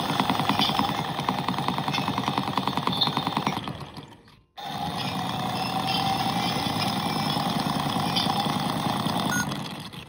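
Toy washing machine's small electric motor spinning the drum with a fast buzzing rattle. It fades out about four seconds in, starts again abruptly and runs on, tailing off near the end.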